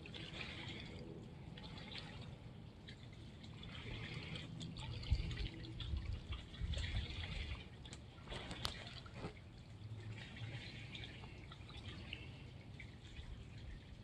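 Calm water lapping softly at a sandy mangrove shore, with small trickling, dripping splashes and a few low thumps in the middle. A faint distant train whistle fades out about a second in.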